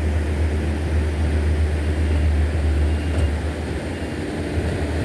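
Steady low rumble with a light hiss above it and no distinct events.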